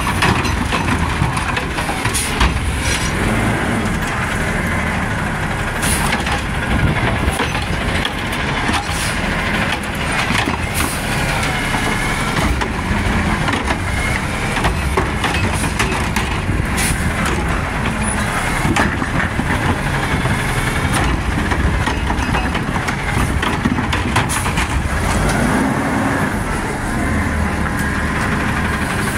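Peterbilt automated side-loader garbage truck, its engine revving to drive the hydraulic arm as it lifts and tips wheeled trash carts into the hopper. Sharp knocks come every few seconds as the carts bang against the hopper.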